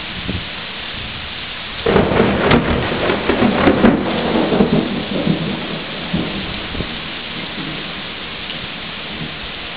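Heavy rain falling steadily, broken about two seconds in by a sudden, loud, close clap of thunder that rumbles and crackles for about four seconds before fading back into the rain.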